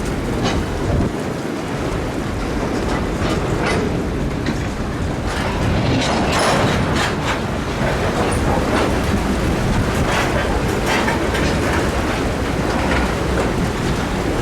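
Canadian Pacific freight train rolling slowly over flooded track: a steady low rumble with water sloshing around the wheels and frequent irregular clanks from the cars.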